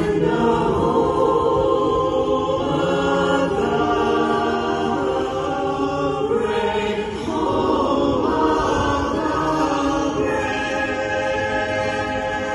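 A small vocal jazz group singing the national anthem in harmony over a stadium PA, holding long chords.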